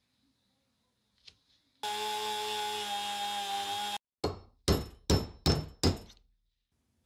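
A small power drill runs steadily for about two seconds, boring into the pin at the centre of the sharpener's crank-handle knob, and cuts off suddenly. Then come five sharp hammer taps, about two and a half a second, driving the pin out.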